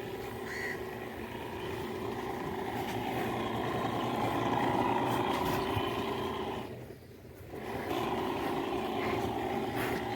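Small engine-driven power sprayer running with a steady hum while cattle are sprayed against ticks. The hum dips for about a second around seven seconds in, then picks up again.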